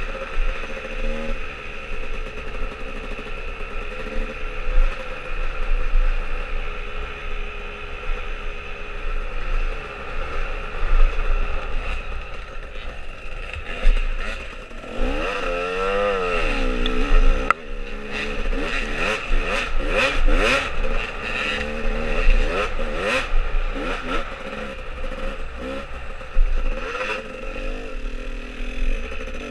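Dirt bike engine heard on board from the rider's helmet camera, running under varying throttle along a trail. About halfway through it revs up and down rapidly several times, and through the second half the bike clatters and rattles over the bumps.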